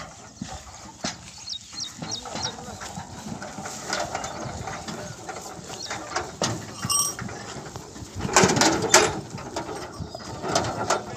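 Bullock cart with a sheet-metal body loaded with granite stones rolling behind a pair of bullocks, the body and stones rattling and knocking, loudest about eight to nine seconds in. A few short bird chirps come about two seconds in.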